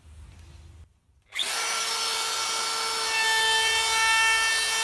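DeWalt compact trim router with a half-inch roundover bit, running and cutting along the edge of a plywood cutout. It starts suddenly about a second and a half in, a steady high whine over the rasp of the cut.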